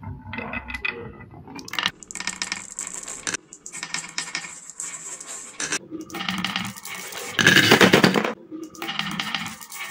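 Glass marbles rolling and clicking along a wooden track and knocking against other marbles on a wooden slope. About three-quarters of the way through they drop into a wooden box full of marbles with a loud clatter.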